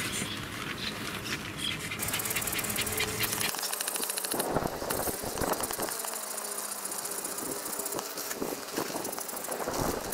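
Nylon fabric of a blue sleeping pad rustling and crinkling as it is handled and spread out in a small tent. A high, rapidly pulsing buzz runs behind it from about two seconds in.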